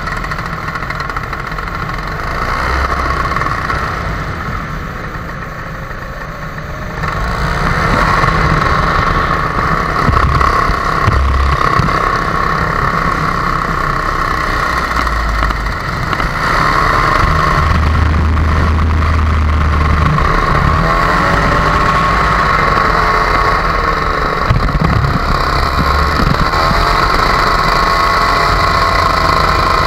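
Blackhawk paramotor's two-stroke engine running steadily in flight. It gets louder about seven seconds in and holds there.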